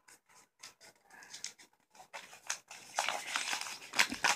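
Wrapping being torn and unfolded by hand: irregular crackling and rustling that grows denser in the second half, with one sharp crackle about four seconds in.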